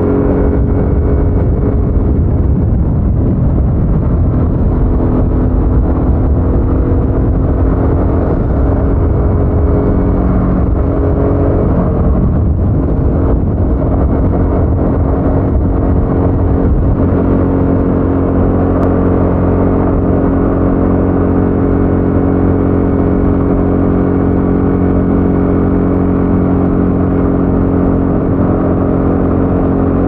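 Harley-Davidson Sportster S's 1250 Revolution Max V-twin running through its stock exhaust on the move. For the first dozen seconds or so the note is rougher and buried in more noise. It shifts in pitch, then from about seventeen seconds in settles into a steady, even drone.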